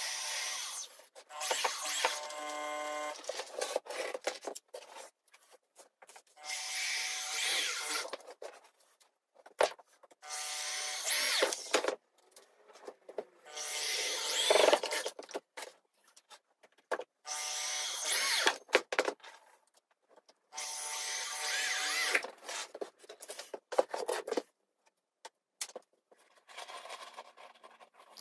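Corded electric drill driving screws into wood, running in repeated bursts of a second or two each, about eight times, with short pauses between screws.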